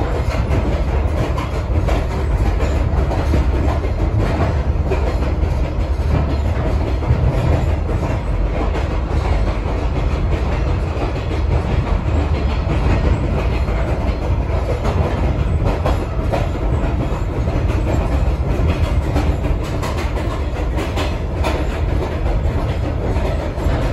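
Caboose rolling along the track: a steady, heavy low rumble from the car's running gear, with scattered clicks from the wheels on the rails.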